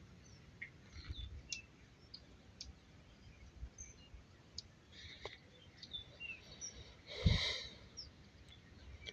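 Faint outdoor ambience with small birds chirping now and then, short high calls scattered throughout. A brief, louder rushing noise about seven seconds in.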